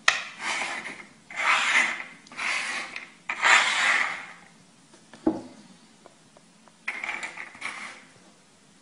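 Small shells slid and shuffled by hand across a wooden tabletop: a run of rasping scrapes, about four in the first four seconds, a single knock on the table about five seconds in, and a couple of fainter scrapes near the end.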